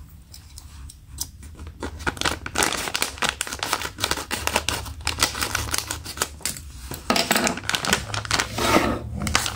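Small scissors snipping open a plastic blind bag, with the crinkly plastic rustling as the bag is handled; the crinkling grows louder near the end.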